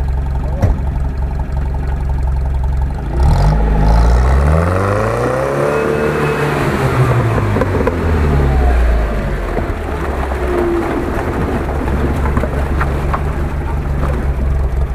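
UAZ-469 off-road engine running steadily, revved up for a few seconds about three seconds in, the pitch climbing and then easing back down to a steady low run by about nine seconds in.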